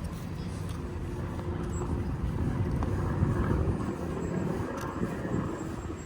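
Steady low rumble of a motor vehicle, swelling slightly midway.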